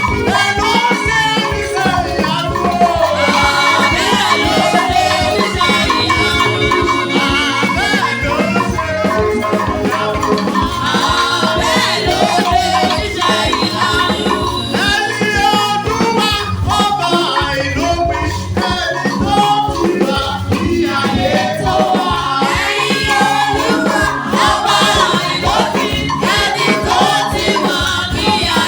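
Praise music at a church revival: voices singing over a steady percussion beat.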